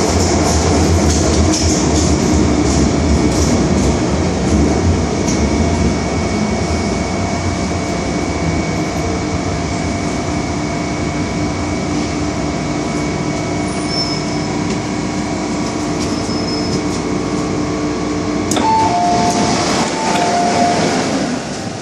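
Inside a car of an MTR Island Line M-Train in motion: steady running rumble with a motor whine, easing as the train slows into a station. Near the end, a click and then a repeated two-note chime.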